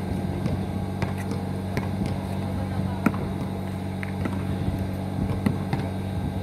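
Outdoor basketball court ambience: a steady low hum underneath, with a few sharp knocks of a basketball bouncing on the asphalt, the loudest about three seconds in, and faint voices.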